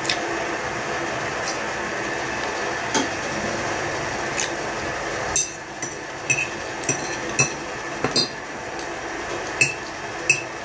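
Metal fork clinking and scraping against a plate while cutting and spearing boiled potatoes and chicken cutlets: about ten sharp clinks, most of them in the second half.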